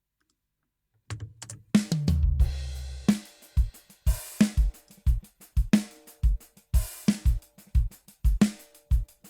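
A sampled drum kit (bass drum, snare, tom and cymbal) playing a beat back through an echo/chorus effect plugin, starting about a second in. The bass drum hits roughly twice a second, with cymbal crashes on some beats.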